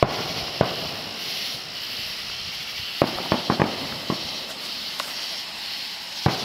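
Fireworks going off: a series of sharp bangs and pops, with a quick cluster of them about halfway through, over a steady hiss.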